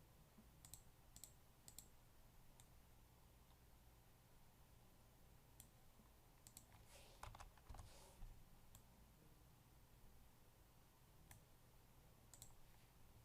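Near silence with faint computer mouse clicks, a dozen or so scattered through, with a short flurry about halfway, over a low room hum.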